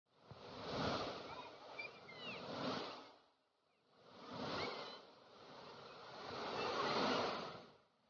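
Rushing water of a shallow rocky creek below a waterfall, swelling and fading twice and almost dying away between, with a few short high chirps over it.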